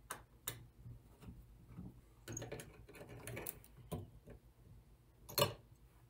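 Irregular light clicks and metal ticks of a small screwdriver working screws out of the metal RF shield over a Dell Wyse 5060 thin client's memory slots. One sharper tap comes near the end.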